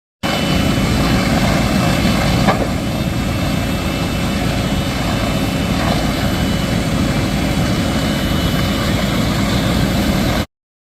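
Steady engine rumble with a hiss over it and a single click about two and a half seconds in; it starts abruptly and cuts off abruptly near the end.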